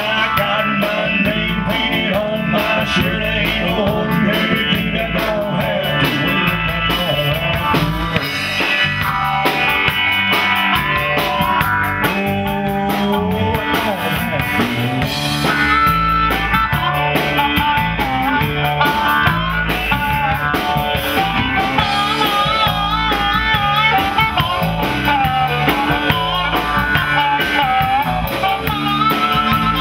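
Live country-rock band playing: electric guitars over bass and a drum kit with a steady beat.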